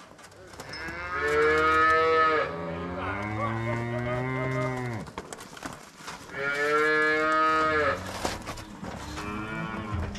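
Dairy cow mooing loudly twice: one long call of about four seconds that drops in pitch at the end, then a shorter call, over a steady low hum.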